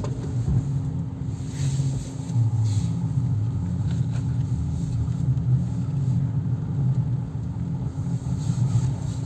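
Car driving on a snow-covered road, heard from inside the cabin: a steady low engine and road rumble with a constant hum, and brief hissy swells of tyre noise.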